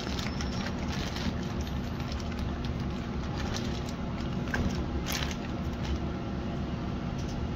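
Steady whoosh and hum of a commercial kitchen exhaust hood running, with a faint light knock about five seconds in.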